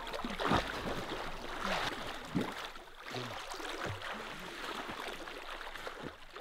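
Swimmers thrashing through lake water with arm strokes and kicks: a steady wash of splashing and sloshing, with separate splashes about once a second.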